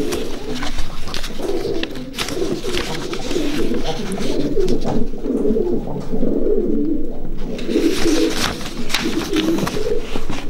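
Many racing pigeons cooing at once in their loft, a dense, continuous layer of overlapping low coos, with a few short rustles or clicks.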